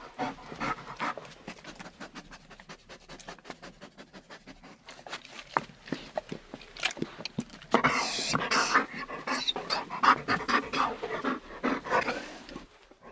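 A dog panting quickly in short rapid breaths and whining, growing louder and denser about two-thirds of the way through.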